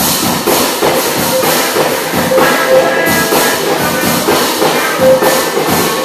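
Music with a steady, driving drum beat.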